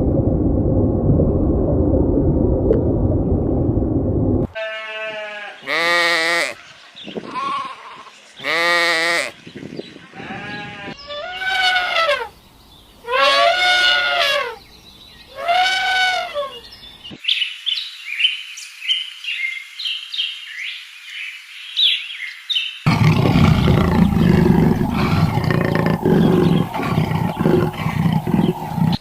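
A sequence of animal calls: a low, rough rumbling for the first four or five seconds, then a series of separate bleats from livestock, then about six seconds of rapid high chirping, then low rough rumbling again near the end.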